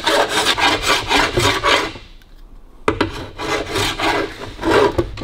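Body file rasping in quick back-and-forth strokes along the edge of an aluminium bonnet panel, about three strokes a second. The strokes stop for about a second about two seconds in, then start again after a click. This is metal finishing: filing the repaired panel down to show up and level its high spots.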